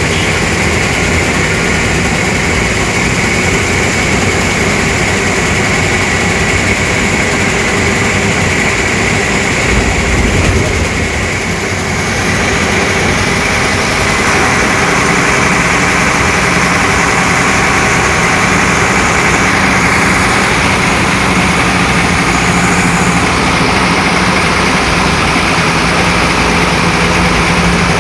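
Diesel engine of a Tata 1510 bus idling steadily. A brief low swell about ten seconds in is followed by a slight dip, then it runs on a little louder and evenly.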